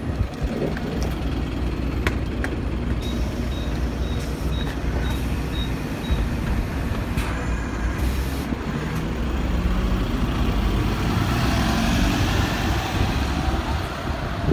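Otokar Kent C12 city bus's diesel engine running at a stop. A run of about eight short, high beeps comes a few seconds in, the door warning. Two hisses of air follow a little past halfway, then the engine grows louder as the bus pulls away.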